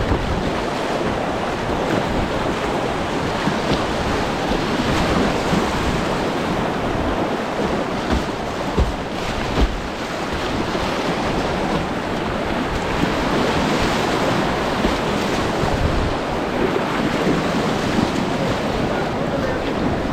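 Steady rush of whitewater through river rapids, with wind buffeting the microphone. A few short low thuds come about halfway through.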